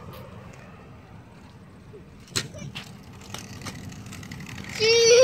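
Kick scooter wheels rolling on concrete with a low, steady rumble and a sharp click about two seconds in. Near the end a child's high voice calls out loudly for about a second, wavering in pitch.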